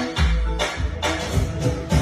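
Music with a steady beat: deep bass notes and a sharp percussion hit about twice a second.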